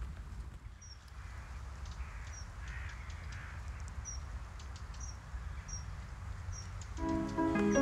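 Birds calling outdoors: repeated short high chirps and a few longer, hoarse, crow-like calls over a low background rumble. Music with steady notes begins near the end.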